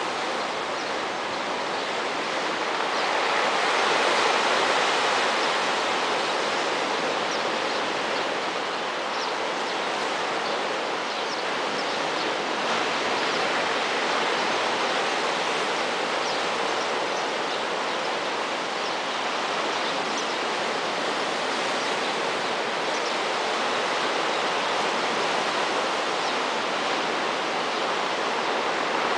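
Surf breaking and washing over a rocky beach below, a steady rushing wash that swells about four seconds in.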